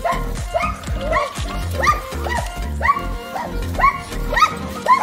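A dog barking over and over, about two short barks a second, over background music with a heavy bass beat.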